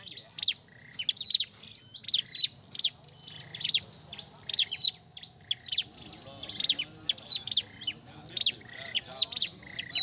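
Tailorbird (the red-crowned 'chim sâu đầu đỏ') singing a fast series of sharp, hooked chirps, about two a second.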